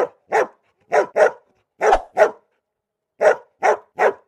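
Dog barking, about nine short barks, mostly in quick pairs with brief pauses between.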